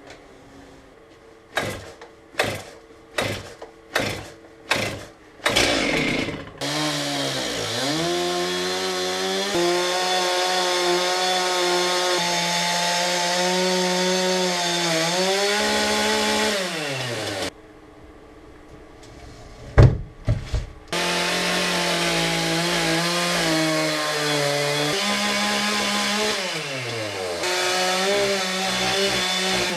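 Two-stroke chainsaw pull-started: about six quick pulls before it catches, then running at high revs while carving wood. Near the middle it cuts out, and after a couple more pulls it starts again and runs on, its pitch dipping and rising under load.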